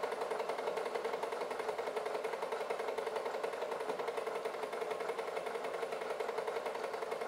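Super 8 film projector running: a steady, fast mechanical clatter of the film advancing through the gate.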